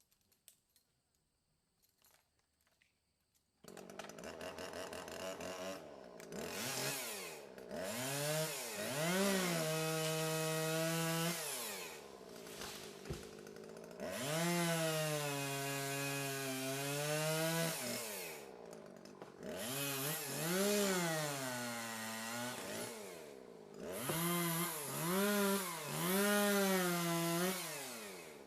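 Chainsaw cutting trees. After a few seconds of near silence with faint ticks, the engine starts abruptly about four seconds in. It revs up and down over and over, holding a steady pitch for a couple of seconds at a time as it cuts, and drops back briefly between cuts.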